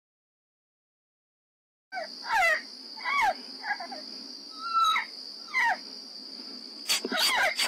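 After about two seconds of silence, a series of short, loud coyote barks and yelps, each sweeping down in pitch, comes roughly once a second over a steady high trill of crickets, with a cluster of sharp cracks near the end.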